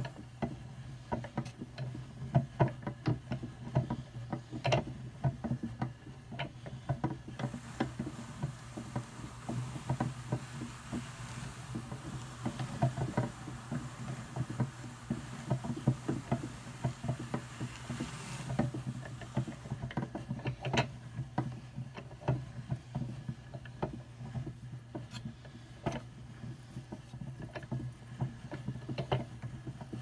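Hand-cranked drum carder turning steadily, its fine carding cloth combing wool that is fed in by hand. A steady low hum runs under frequent irregular ticks and clicks from the machine and the fibre.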